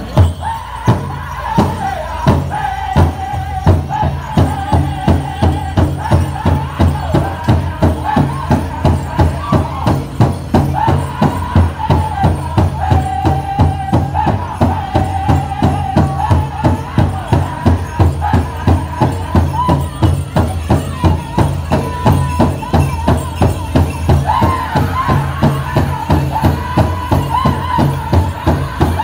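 Powwow drum group singing a chicken dance song: high, gliding voices over a steady beat on a big powwow drum, with the jingle of the dancers' bells.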